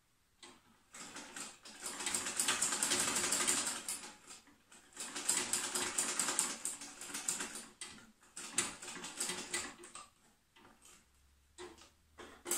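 A household sewing machine more than 40 years old stitching denim in several runs of rapid needle clatter, separated by short pauses, with a sharp knock at the very end.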